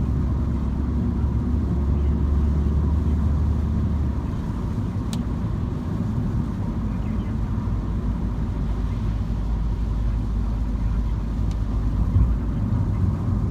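MINI car driving, with a steady low engine and road rumble; the low engine tone drops and changes about four seconds in. A sharp tick comes about five seconds in, and a fainter one near the end.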